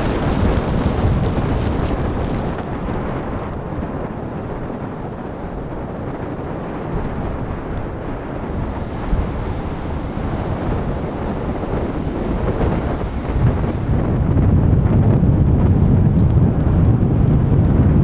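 Strong storm wind buffeting the microphone, with heavy surf beneath it; the wind grows louder in the last few seconds.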